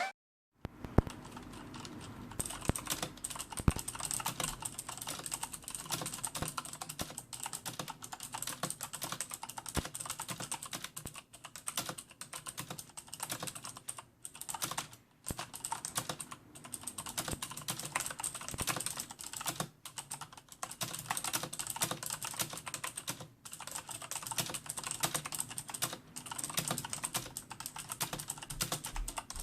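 Continuous fast typing on a Corsair K70 mechanical keyboard with clicky Cherry MX Blue switches, a rapid run of key clicks broken by a few short pauses.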